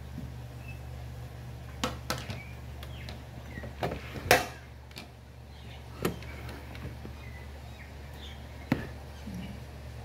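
Several sharp knocks or taps, the loudest about four seconds in, over a steady low hum, with a few faint short chirps.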